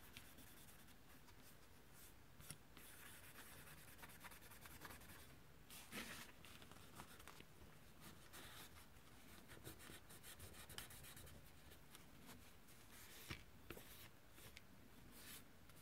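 Faint scratchy rubbing of a paper wipe scrubbed over a graphics card's cooler plate, wiping off old thermal paste, with a few sharp clicks.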